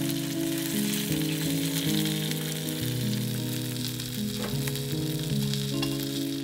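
Flour-dusted pieces of yellowtail sizzling as they shallow-fry in oil in a frying pan, over soft background music.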